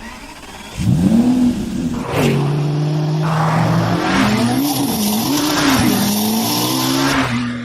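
Race car sound effect: an engine revving, its pitch climbing about a second in and then swinging up and down, over a steady hiss, fading out near the end.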